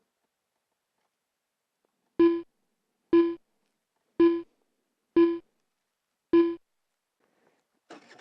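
Five identical short electronic keyboard notes on one pitch, about a second apart, each struck sharply and dying away quickly, like an intro countdown. A faint rush of outdoor noise starts just before the end.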